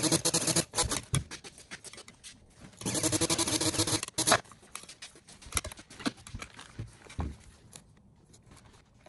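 Soap-making handling sounds: scraping and light knocks of utensils against containers, with a denser stretch of scraping lasting over a second about three seconds in, then sparse quieter clicks.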